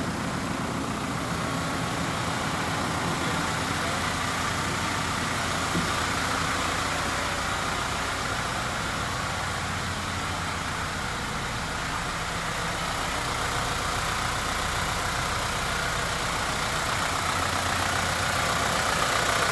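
Mitsubishi Rosa bus's 4M51 four-cylinder diesel engine idling steadily, heard inside the passenger cabin. It gets a little louder near the end.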